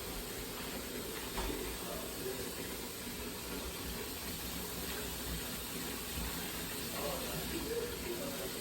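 Kitchen tap water running in a steady hiss.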